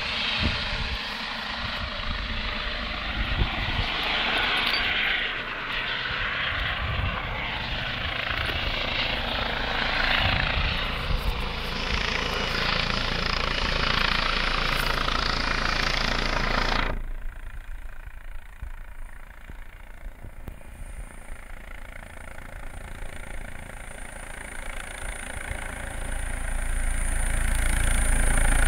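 Air ambulance helicopter heard from a distance: a steady rushing drone of rotor and engine. About two-thirds through, the sound drops suddenly to a fainter level, then swells again near the end with a high steady whine.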